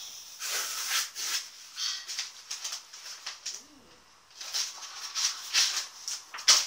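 Parcel packaging being handled and torn open: irregular crinkling and rustling, pausing briefly midway, with a sharp loud rip near the end.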